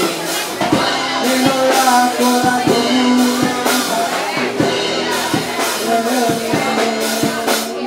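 Live band music: a drum kit keeping a steady beat under sustained guitar and bass lines, with a voice singing.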